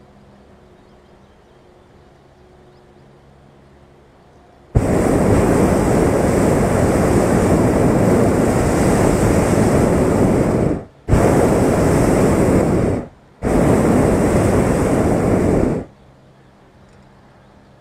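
Hot-air balloon's propane burner firing in three blasts: a long one of about six seconds starting about five seconds in, then two shorter ones of about two seconds each, with brief breaks between. Each blast is a loud, steady rushing noise that starts and stops sharply.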